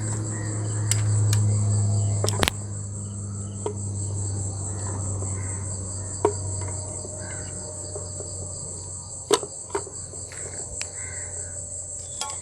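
Crickets chirping steadily, with a low hum that is loudest in the first couple of seconds and then fades. Scattered sharp metallic clicks and clinks from hand tools on engine parts, the loudest about two and a half seconds in.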